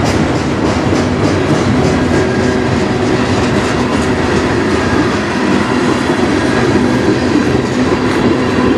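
Freight cars of a manifest train rolling past close by: a steady, loud noise of steel wheels on rail with some clickety-clack over the rail joints.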